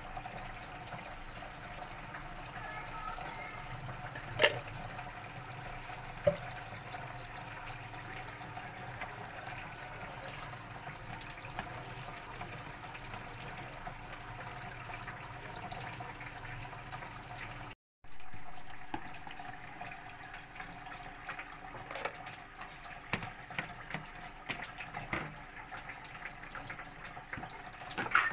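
Hands mixing and kneading freshly oiled pizza dough in a plastic bowl over a steady hiss, with two sharp knocks a few seconds in. The sound drops out briefly about 18 seconds in.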